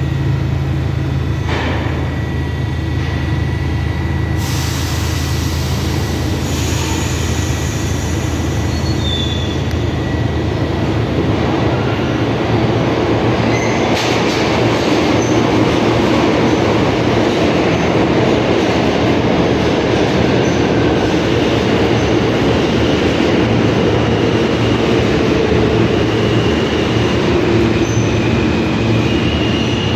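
R68 subway train running on the track, a steady loud rumble of wheels on rail with brief high-pitched wheel squeals, more of them in the second half.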